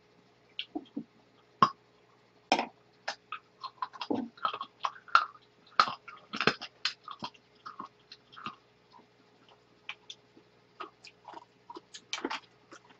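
Close-miked eating: irregular chewing and wet mouth clicks from people eating seafood stew, with small clinks of a ladle and chopsticks against the dishes.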